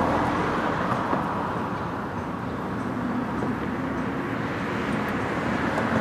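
Road traffic on a city bridge: a steady noise of passing cars, swelling slightly again near the end.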